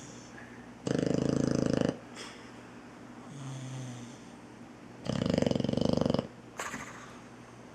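Boxer puppy snoring loudly: two long, buzzing snores about four seconds apart, with quieter breathing between them.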